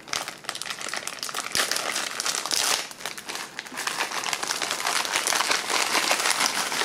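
Clear plastic MRE accessory-pack bag crinkling continuously with many sharp crackles as hands work it open and pull out the small paper and foil packets inside.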